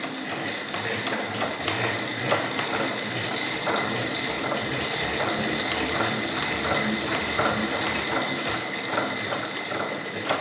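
Continuous mechanical clicking and rattling, with irregular sharp clicks over a steady hiss and a faint high whine. It stops abruptly at the end.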